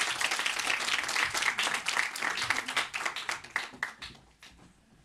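Audience applauding in a small room. The clapping thins out and dies away about four seconds in.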